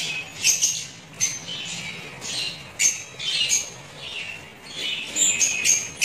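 A flock of African lovebirds (masked and Fischer's lovebirds) chattering, with many short, sharp, high-pitched calls and squawks overlapping in an irregular stream.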